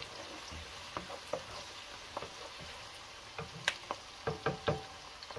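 Diced onion sizzling in hot oil as it is sweated until translucent, stirred with a wooden spoon that knocks against the nonstick pot now and then, with several knocks close together about four and a half seconds in.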